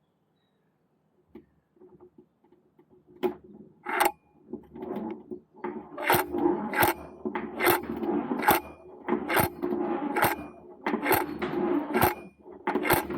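Church bell swinging as it is rung up, its tied clapper knocking against the bell instead of letting it ring out properly. The knocks start sparse and faint a second or two in, then come regularly about once a second and louder, with a low rumble and a faint ring lingering between them.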